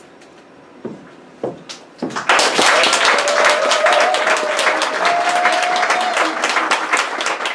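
Audience applauding and cheering at the end of a monologue, breaking out about two seconds in after a couple of short shouts, with one voice holding a long cheer over the clapping.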